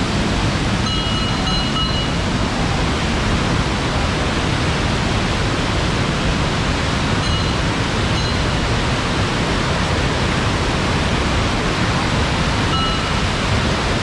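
Waterfall in heavy flood flow, a thick torrent of water rushing down stone steps in a steady, loud rush.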